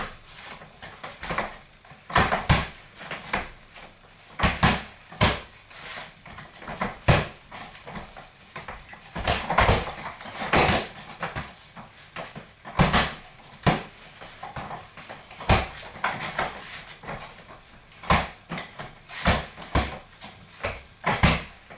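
Boxing gloves striking punch mitts: sharp slaps in irregular combinations, often two or three in quick succession, with short pauses between.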